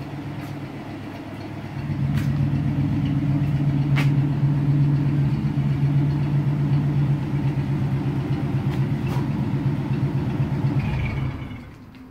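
1949 Ford's engine idling steadily. The hum grows louder about two seconds in and stops near the end as the engine is switched off.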